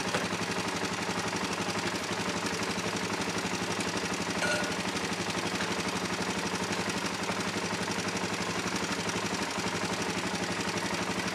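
2003 Suzuki LTZ400 quad's single-cylinder four-stroke engine idling steadily with an even putter. It is warming up after a cold start while the choke is backed off; the owner thinks it had too much choke.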